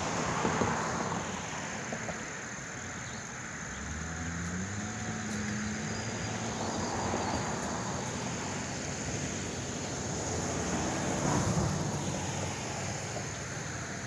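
Road traffic passing, with a low engine tone rising about four seconds in. A distant Federal Signal 2001 outdoor warning siren sounds faintly behind it.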